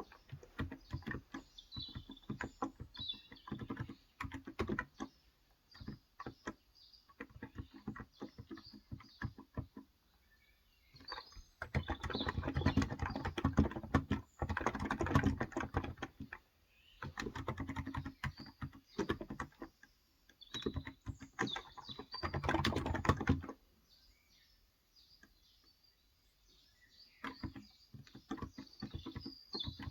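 Typing on a Cox Endeavor electro-capacitive 35 g tenkeyless keyboard: fast runs of keystrokes broken by pauses of a second or two. Birds chirp faintly in the background now and then.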